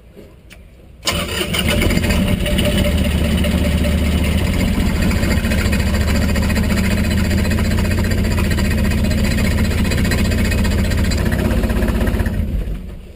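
Sailboat's inboard diesel engine starting about a second in, running steadily while uncoupled from the propeller shaft, and shutting off near the end. It still runs shaky, a fault the owner traces to a snapped engine mount.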